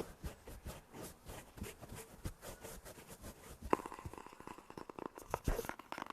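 Close-miked ASMR trigger sounds: a rapid, irregular run of soft clicks and taps, with two sharper clicks in the second half.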